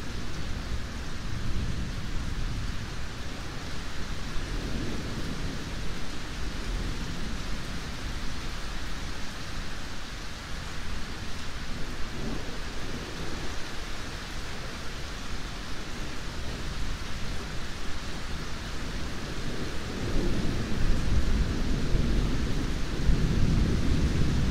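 Steady heavy rain hissing, with low rolling thunder rumbling underneath that grows louder near the end.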